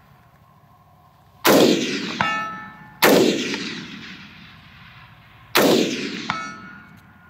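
Three rifle shots from a Colt 6920 AR-15 in 5.56 NATO, fired about a second and a half and then two and a half seconds apart. About three-quarters of a second after the first and third shots comes a short metallic ring: a steel target being hit downrange.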